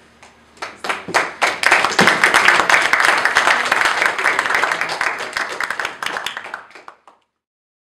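Audience applauding: a few scattered claps at first, building within a second or so into full, dense applause, then thinning out and ending about seven seconds in.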